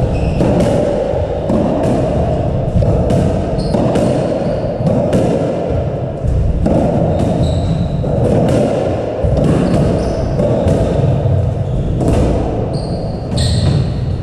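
Squash rally: the rubber ball cracks off the rackets and thuds against the court walls every second or so, and shoes squeak in short bursts on the wooden floor. The court echoes, and a steady rushing noise runs underneath.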